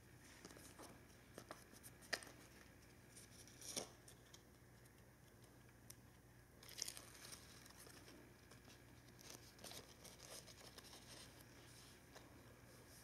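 Faint rustling, crinkling and peeling of a paper-backed wound dressing as its backing strips are worked loose by hand, with a few small clicks between.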